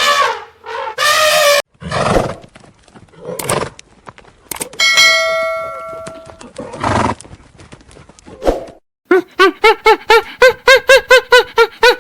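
Several different animal calls one after another. A ringing, bell-like tone sounds about five seconds in, and from about nine seconds there is a rapid series of short pitched calls, about three a second.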